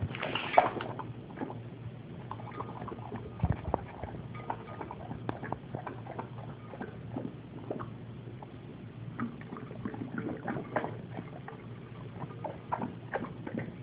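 Pit bull lapping water and nosing at ice cubes in a glass bowl: irregular wet slurps, splashes and small clicks, busiest near the start and again toward the end.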